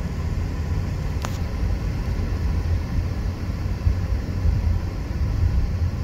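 Interior of a Mazda CX-30 pulling away gently from a stop: steady low engine and road rumble. A short sharp click sounds a little over a second in.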